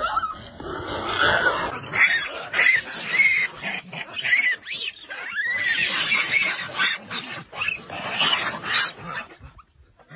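A troop of macaques calling: many short, high squeals that rise and fall, overlapping one another, over scuffling and scrambling noise. The calling dies away near the end.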